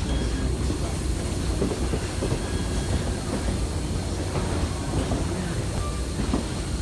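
Train rolling along the track: a steady low rumble with scattered clicks from the wheels on the rails.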